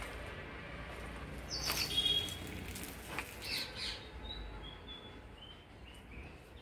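Small birds chirping, with a run of short high notes stepping down in pitch over the last couple of seconds. There are a few soft rustles and knocks along with them.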